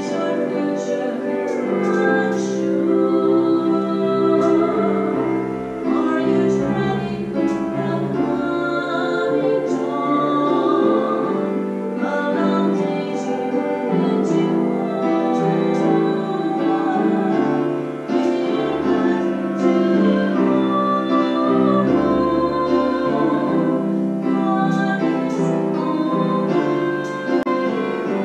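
Slow church music led by piano, with held chords that change every second or so.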